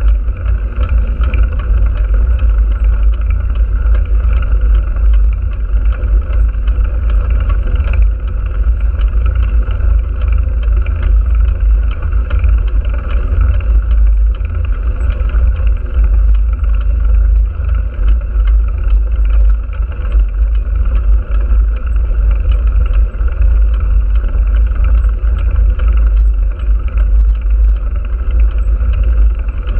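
Steady wind rumble buffeting the microphone of a moving vehicle's onboard camera, with continuous road noise underneath.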